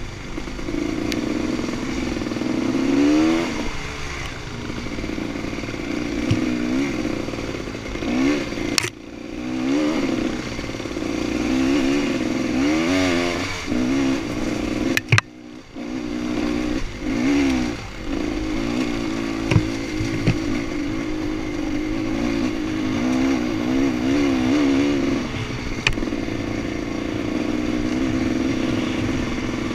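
Dirt bike engine revving up and down again and again as the bike is ridden along a rough trail. There are two sharp knocks, about 9 and 15 seconds in.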